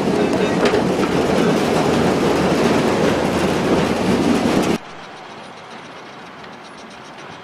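Loaded sugar beet wagons rolling on the track, a loud steady rumble and clatter of wheels on rail. About five seconds in it cuts off abruptly to a much fainter steady rumble.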